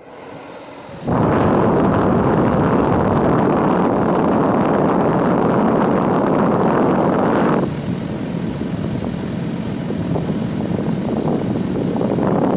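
Car air-conditioning blower switched on at full speed about a second in: a loud, steady rush of air that drops to a lower setting a little past halfway.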